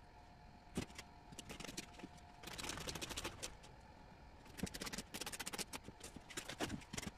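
A webbing tie-down strap being handled and pulled through its buckle: scattered clicks and short bursts of rattling and rustling. A faint steady hum stops about two and a half seconds in.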